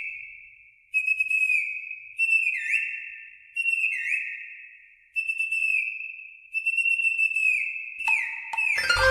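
A high whistle-like tone repeated about every second and a half. Each note starts suddenly and dips a little in pitch as it fades.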